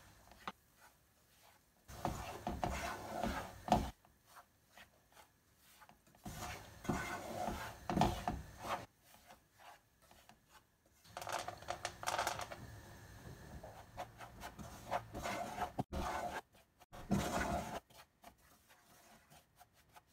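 Wooden spoon scraping and stirring semolina across a nonstick frying pan in bouts of a couple of seconds with short pauses: the gritty rasp of dry grains being roasted in butter and oil for semolina halva.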